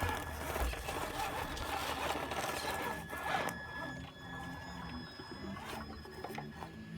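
Traxxas TRX-4 Sport RC crawler driving: its electric motor and geared drivetrain whir with a steady high whine, over rough scraping noise that is loudest in the first three and a half seconds.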